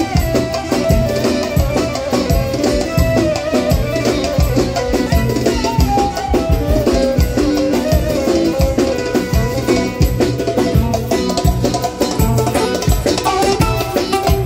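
Live band music played on electronic keyboards over a steady, dense drum beat, with no singing.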